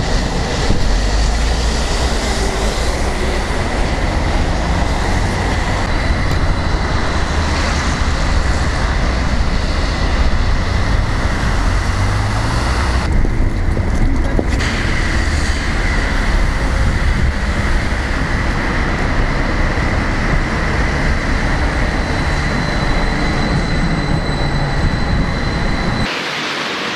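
Stadler low-floor tram running, a steady rumble with a constant high whine over it. Near the end it cuts to a lighter hiss without the rumble.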